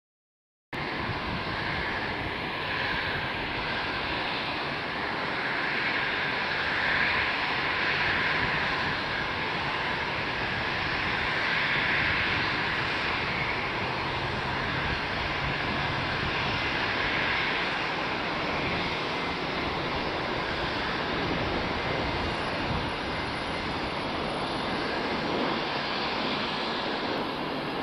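Airbus A330-200 airliner on final approach with gear down, its twin turbofan engines running with a steady jet roar that swells and eases a few times. The sound begins suddenly just under a second in.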